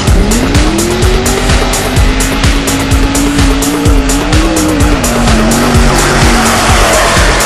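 Trophy truck and Class 1 desert race buggy launching side by side from a standing start. The engines rev up sharply as they leave the line, then run hard at high revs as they accelerate away over sand.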